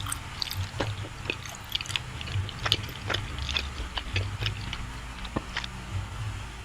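Close chewing and wet mouth clicks of someone eating soft, creamy cake, in many small irregular ticks and smacks.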